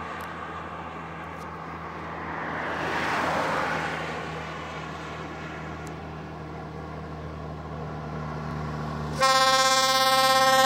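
Highway traffic with a steady low engine hum and a vehicle passing about three seconds in; about nine seconds in a passing truck's air horn sounds, a loud held multi-tone blast that continues.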